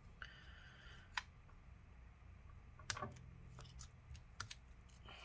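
Quiet small clicks and ticks of fingers and tools working at old battery adhesive strips on a MacBook Pro's aluminium top case, with a short scratchy rasp of scraping just after the start, a sharp click about a second in, and a handful more clicks in the second half.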